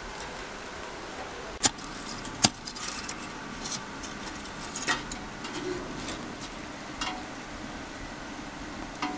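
Two sharp clicks, then scattered lighter clinks, as lumps of charcoal in a metal grill are handled and lit with a lighter, over a steady hiss of rain.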